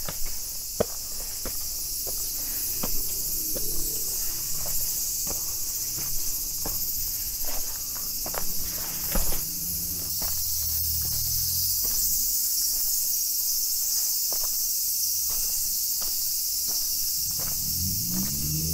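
Insects calling in a steady, unbroken high-pitched drone, over footsteps climbing outdoor steps at an even pace.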